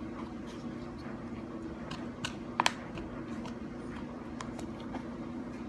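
Homemade slime being squeezed and kneaded by hand: scattered small sticky clicks and pops, with a sharper pair about two and a half seconds in, over a steady low hum.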